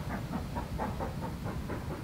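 Steam locomotive working out of sight, its exhaust beats coming fast and even, about six a second, over a low rumble.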